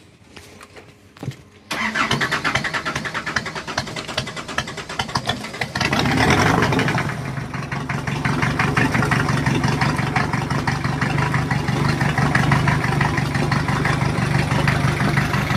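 Nissan 2500 cc marine diesel cranked on its starter, then catching about six seconds in and running steadily. It is starting after its injectors were refitted and air was bled from the fuel.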